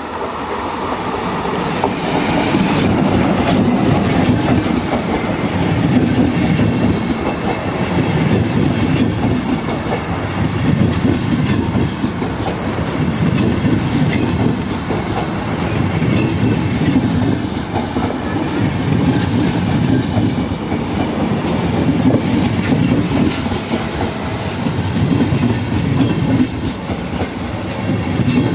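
A passenger train hauled by a class 371/372 electric locomotive passes close by: a steady loud rumble of wheels on rail with irregular clicks as the coaches run over the rail joints, and a few brief high squeals from the wheels.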